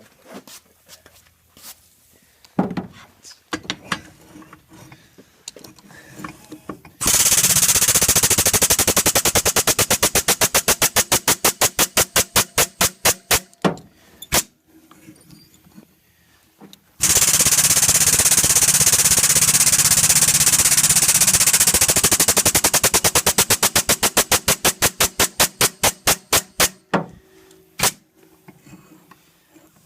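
Power hammer pounding a hot steel knife blade in two long runs of rapid blows, flattening out the die marks. Each run slows and fades as it ends. Before them come a few light clicks and knocks.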